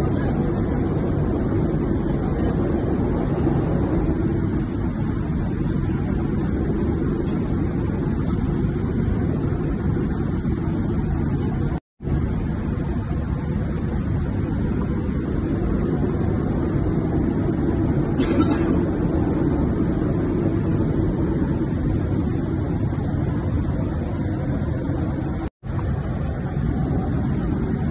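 Steady low rumble of an airliner cabin in flight, the drone of the engines and rushing air. It drops out briefly twice, and a short hiss comes about two-thirds of the way through.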